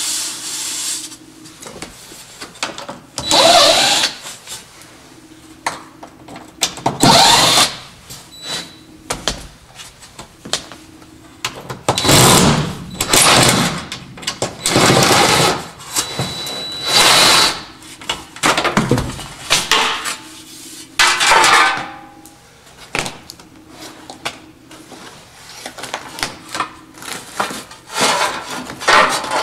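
Cordless drill/driver running in about seven short bursts of a second or so each, with pauses between, backing out the screws of a car's door sill plate.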